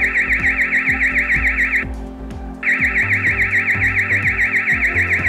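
Built-in siren of a Dahua TiOC active-deterrence security camera sounding its intruder alarm: a loud, fast-warbling high tone that breaks off for under a second about two seconds in, then starts again. Background music with a steady bass runs underneath.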